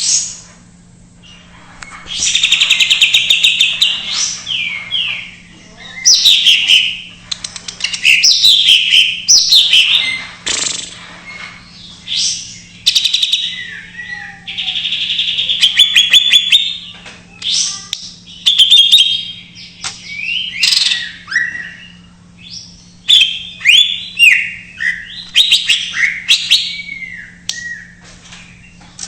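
Cucak ijo (green leafbird) singing a loud, varied song laced with imitations of other birds: bursts of fast trills, chatter and sliding whistles, one after another with short pauses.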